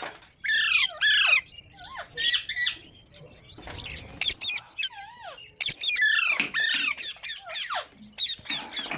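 Baby parrots squawking and squeaking in rapid, repeated short calls that slide down and back up in pitch, coming in bursts with short gaps and thickest in the second half.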